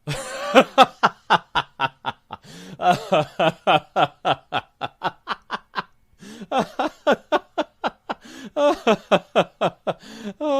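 Hearty laughter: rapid voiced 'ha' pulses at about four a second, in three long runs with short pauses between them.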